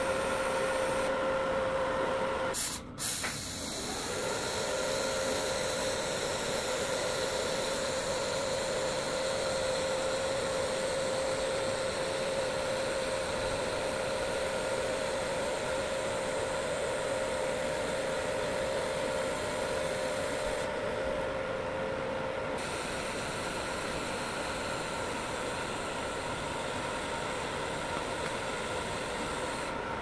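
TIG welding arc on stainless-steel tubing: a steady hissing buzz with a humming tone. It cuts out briefly about three seconds in, then resumes.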